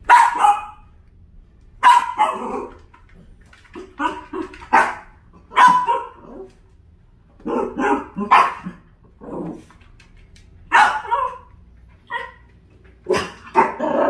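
Long-haired dachshund barking repeatedly at a sleeping puppy: about a dozen sharp barks, singly and in quick pairs, at uneven intervals.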